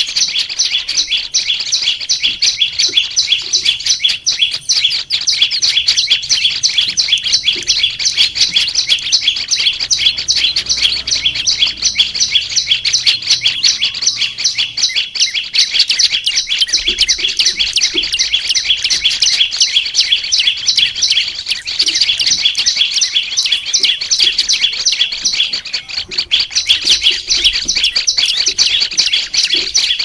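Prenjak lumut, a small Indonesian songbird, singing a fast, unbroken run of high, sharp chirps, many per second, kept up with hardly a pause.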